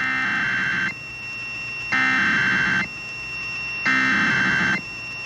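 Emergency Alert System SAME header: three bursts of screeching digital data tones, each a little under a second long with about a second's gap between them. The coded header that opens an emergency alert, here a tornado warning.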